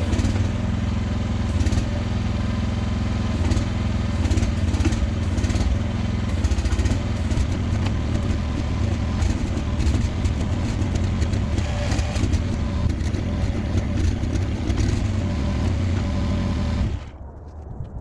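Chinese excavator's engine running steadily while it digs, with frequent clanks and knocks from the machine working. The sound cuts off suddenly about a second before the end.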